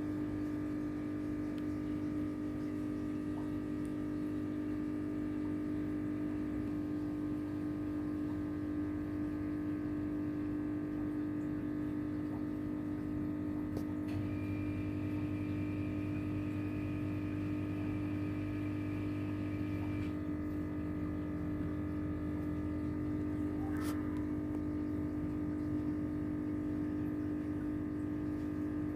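Steady machine hum with a constant low tone. A faint higher whine joins it for about six seconds midway.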